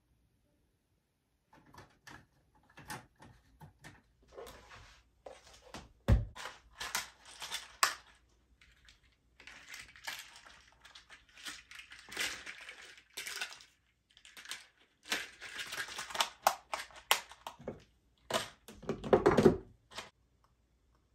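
Small household objects being handled on a tabletop: scattered clicks, knocks and rustles, with a sharp thump about six seconds in and a heavier clatter near the end.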